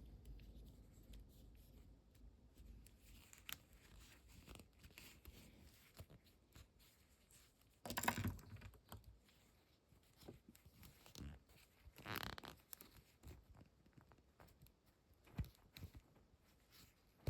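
Faint handling of action-figure packaging: scattered clicks and rustles, with a louder tear about eight seconds in and another about twelve seconds in.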